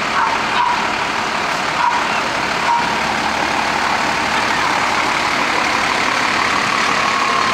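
Fire engine and tanker truck driving slowly past, a steady engine and road noise.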